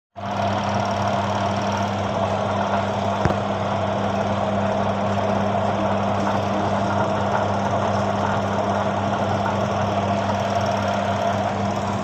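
Intex 6.2 kg washing machine's wash motor running with a steady hum, churning the water in the wash tub with no pause or reversal: the pulsator turns one way only, a fault traced to a bad wash timer. A single click about three seconds in.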